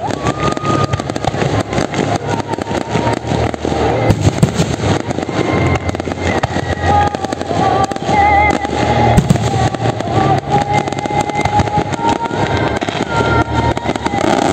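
Fireworks display: aerial shells bursting in a dense, continuous run of bangs and crackling, many reports a second.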